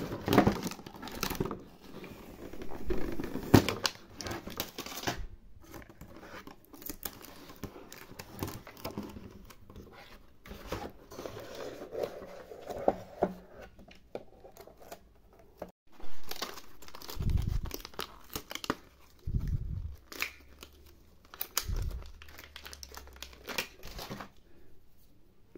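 Plastic packaging crinkling and tearing as small plastic dollhouse toy pieces are unwrapped and handled, with many light clicks and taps. A few dull low bumps come in the second half.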